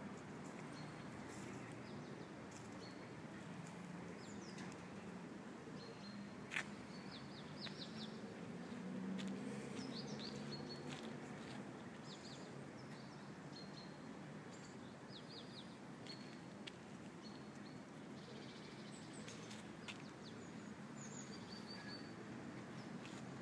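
Faint outdoor ambience: small birds chirp in short, scattered calls over a low, steady background rumble. There is one sharp click about six and a half seconds in.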